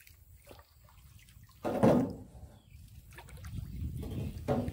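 Paddle strokes in pond water as a small boat is paddled along: one loud splash about two seconds in, water dripping and trickling off the paddle, and a second, shorter stroke near the end.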